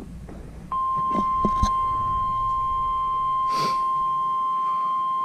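NOAA Weather Radio 1050 Hz warning alarm tone: a single steady tone that starts just under a second in and holds. It is the signal that an urgent warning is about to be broadcast. A few faint clicks and a short burst of static sound under it.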